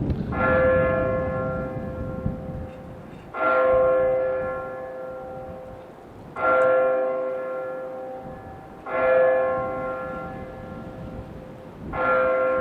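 A large tower bell tolling slowly on a single note: five strikes about three seconds apart, each ringing out and fading before the next.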